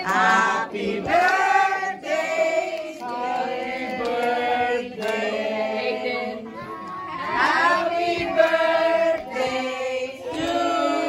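A group of children and adults singing together in unison.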